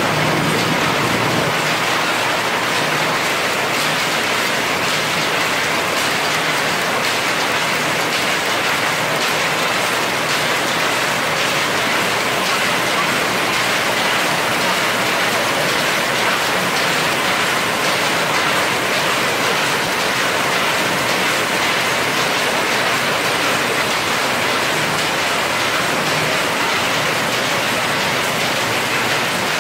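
A steady, even hiss at one unchanging level throughout, with no distinct strokes, tones or rhythm.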